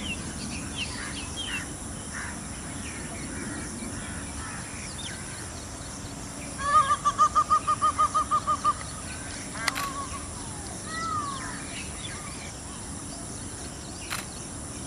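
Peafowl and other birds calling. The loudest part is a rapid run of about a dozen short, evenly spaced call notes a little past halfway, about six a second, with scattered shorter chirps and calls around it.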